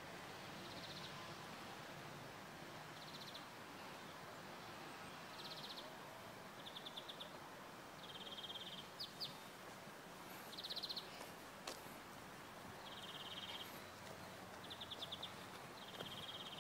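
A small bird repeating a short, high trilled call every second or two over a faint steady outdoor hiss.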